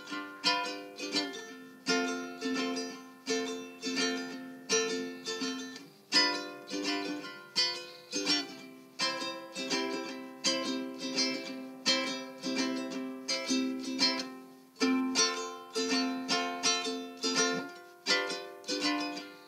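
Background music: a plucked string instrument playing a quick run of notes and chords, each one striking and ringing away.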